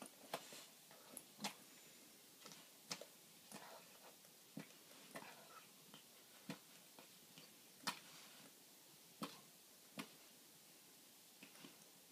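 Near silence broken by faint, irregular short clicks, roughly one a second.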